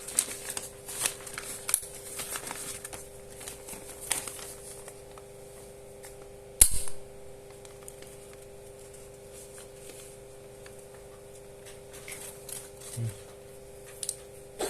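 A needle-free injector pen being handled, with clicks and plastic rustling, then one loud sharp snap about six and a half seconds in, typical of its spring mechanism firing. A faint steady electrical hum runs underneath.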